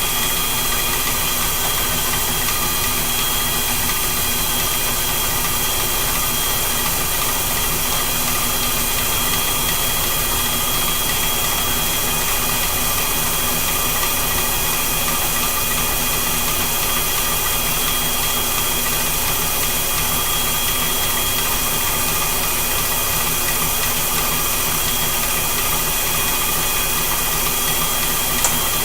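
An early-1900s Reed lathe, driven by a retrofitted treadmill motor, runs steadily while turning a step onto a steel bearing presser: a constant motor whine over an even hiss, with a small click near the end.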